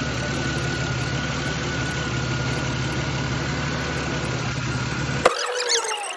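A 2003 Chevrolet Venture's 3.4-litre V6 idling steadily with no misfire after a new ignition coil has been fitted. About five seconds in there is a sharp click and the engine sound cuts off abruptly.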